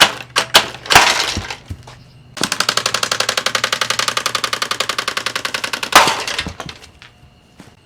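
A Lasko box fan being smashed: a few hard blows in the first second, then a rapid, even clattering of about a dozen strikes a second for three and a half seconds, ending in one loud crash.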